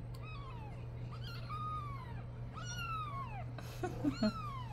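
Newborn Savannah kitten meowing four times, each a thin high call that rises then falls in pitch. A few short soft knocks sound near the end.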